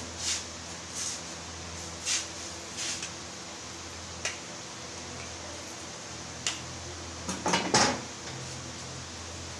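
Scattered clinks and clatters of kitchenware being handled, several single knocks and then a quick, louder cluster of clattering near the end, over a steady low hum.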